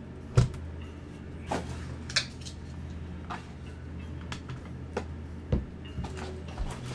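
Handling knocks and clicks from a cardboard hobby box being opened and a card in a clear hard plastic case being lifted out and set down: about seven separate knocks, the loudest about half a second in and another a little past five seconds.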